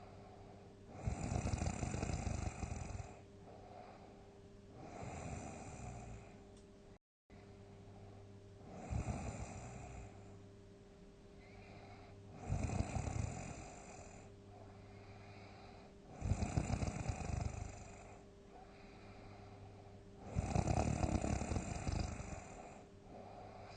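A person snoring loudly, a big snore every three to four seconds with quieter breaths between, over a steady low hum. The sound drops out to silence for an instant about seven seconds in.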